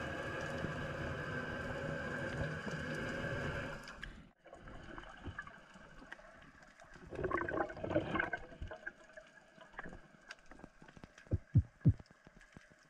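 Sound under water: a steady drone with a low hum, which cuts off abruptly about four seconds in. After it, a brief gurgling burst of bubbles and a few short low knocks near the end.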